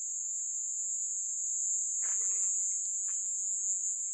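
Night chorus of crickets: a steady high-pitched trill, with faint scattered clicks and rustles underneath.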